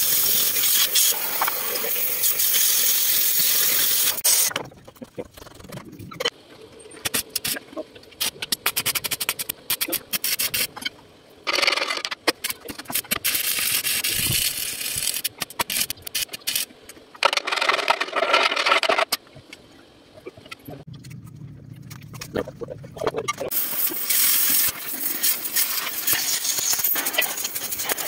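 An oxy-fuel cutting torch hissing as it cuts steel plate, and electric arc welding crackling and sizzling on a steel chassis frame. The sound switches several times between a steady hiss and stretches of irregular sputtering crackle.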